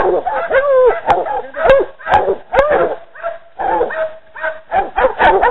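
Hog-hunting bay dogs barking and yipping over and over, about two barks a second with a few drawn-out whining calls mixed in, as they hold a feral hog at bay.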